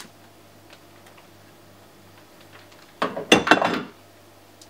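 Something knocked over with a short clatter of several hard hits, about three seconds in, lasting just under a second.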